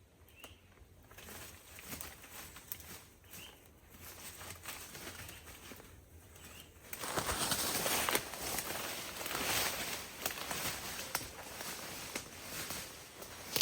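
A bird calls faintly three times, about three seconds apart. About halfway through, a louder crackling, rustling noise full of small clicks starts.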